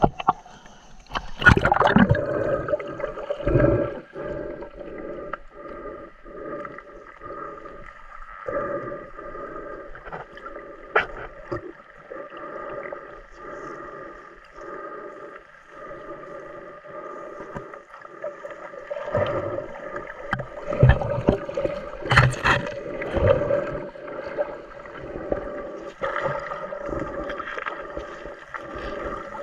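Muffled underwater sound of a snorkeller diving down among seagrass: a loud splash and rush of water as he goes under about two seconds in, then soft regular swishing of water movement over a steady hum, with louder bubbling bursts around twenty seconds in.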